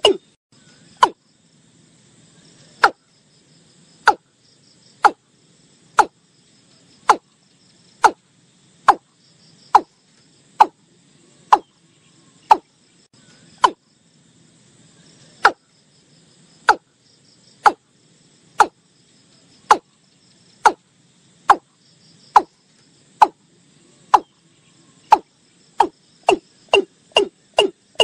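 Watercock calling: a long series of short, clipped notes, each dropping slightly in pitch. They come about one a second and quicken to three or four a second near the end. Faint insects are heard behind.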